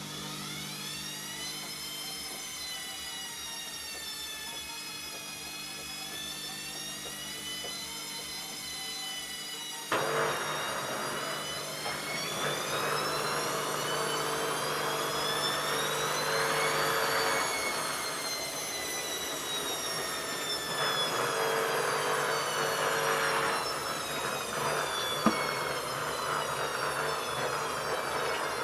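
ELIN A 100 E washing machine's motor whining as the drum changes speed, its pitch wavering and rising. About ten seconds in the machine gets suddenly louder and rougher, and the whine climbs to a peak and then drops again. A single sharp click comes near the end.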